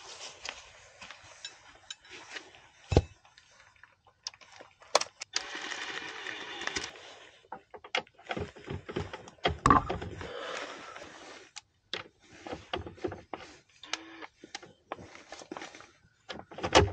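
Ratchet wrench on a long socket extension clicking in short runs as a tight battery hold-down bracket nut is worked, with scattered metal clinks and knocks.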